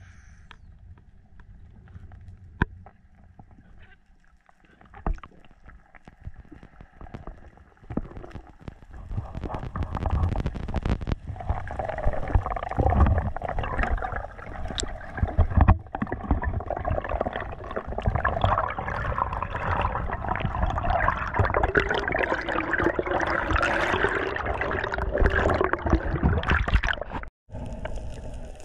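Underwater noise picked up by a camera in its waterproof housing during a freedive. A few faint clicks and knocks come first, then water rushing and gurgling past the housing, building up from about ten seconds in and staying loud to near the end.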